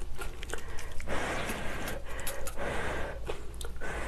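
A person slurping medium-thick wheat noodles in shrimp soup from a small bowl: a long noisy slurp starting about a second in, broken into two or three pulls, with scattered small clicks around it.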